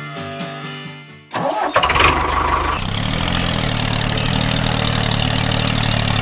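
Background music that cuts off a little over a second in, followed by the small engine of a DIY mini tractor-bulldozer starting up. It runs rough for about a second and a half, then settles into a steady idle.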